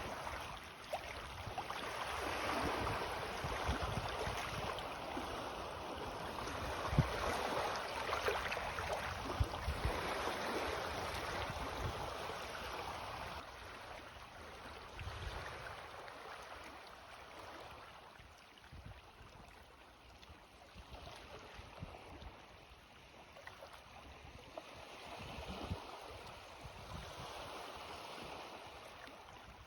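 Small sea waves, ripples of the incoming tide, washing up the shore. The hiss swells for the first ten seconds or so, dies away, and rises again near the end.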